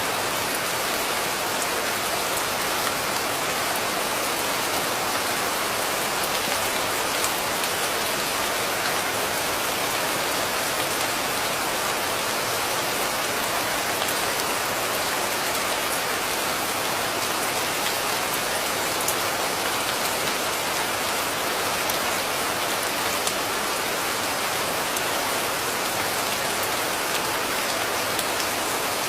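Steady rain falling, an even hiss with scattered ticks of single drops, unchanging throughout.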